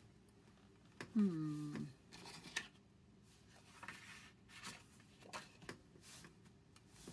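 Sheets of paper rustling, with light scattered taps as paper is handled and pressed flat on a table. A short hummed 'hmm' from a woman's voice, falling in pitch, comes about a second in and is the loudest sound.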